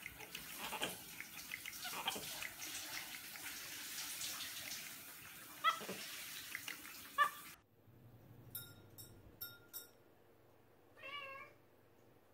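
A steady hiss with a capuchin monkey's short squeaky calls, two of them close together about six and seven seconds in. After a cut, a few light clinks from a ceiling fan's pull chain as a cat bats at it, then one short meow near the end.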